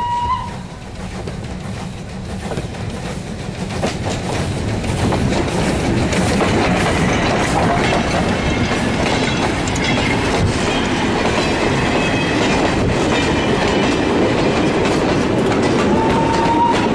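Steam passenger train running past at track level. A whistle blast ends just at the start, then the train's sound swells as it approaches. The carriages clatter by close, wheels clicking over the rail joints with faint squealing, and a brief high tone sounds near the end.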